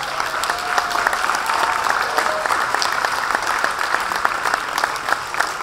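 Audience applauding: a roomful of hands clapping steadily.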